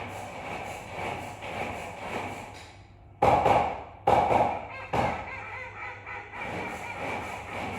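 Female call duck quacking: three loud quacks in quick succession about three seconds in, the last one weaker, over steady background noise.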